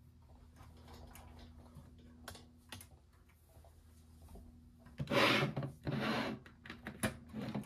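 Faint ticking of electromagnetic kinetic desk toys, then about five seconds in a hand scrapes and slides the round plastic base of a perpetual-motion ball toy across a tabletop in two strokes, followed by a few clicks.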